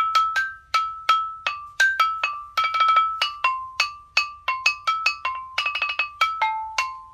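A tuned mallet-percussion instrument played by hand: a melody of single struck notes, each ringing briefly. Three times the player rolls quickly on one note: at the start, about three seconds in, and near six seconds.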